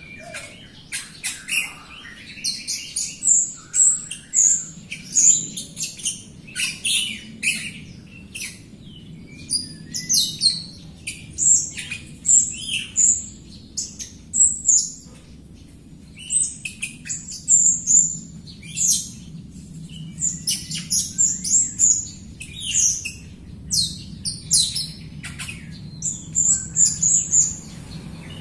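Caged grosbeak starling (jalak rio-rio) calling constantly: quick runs of short, high, squeaky chirps and whistles, one after another with only brief pauses.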